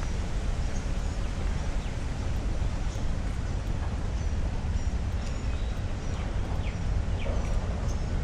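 Park ambience: birds giving many short high chirps and a few quick falling whistles, over a steady low rumble.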